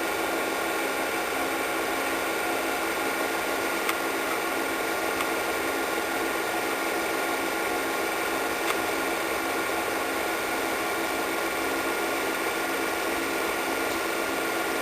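Film projector running: a steady motor whirr with a fast, even mechanical clatter.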